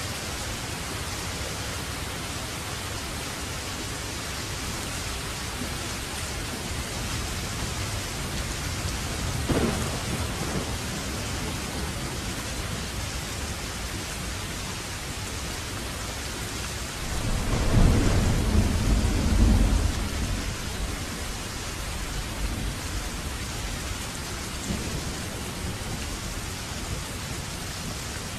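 Steady rain hissing throughout, with a low rumble of thunder lasting about three seconds a little past the middle, and a shorter, fainter rumble earlier.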